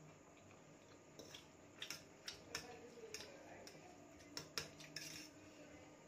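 Metal fork clinking and scraping against a steel plate while picking up instant noodles: a scatter of light, quiet clicks from about a second in until about five seconds in.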